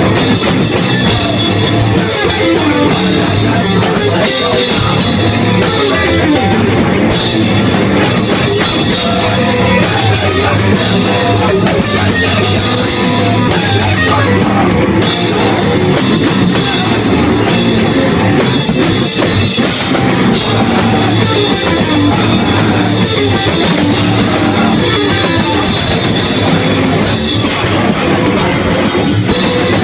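A rock band playing live and loud: electric guitars over a pounding drum kit with crashing cymbals, one dense, steady wall of sound.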